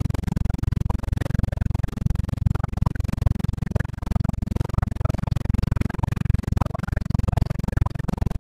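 Cabin noise of a Robinson R22 helicopter in flight: the piston engine and two-bladed main rotor make a steady low drone with a fast, even throbbing pulse.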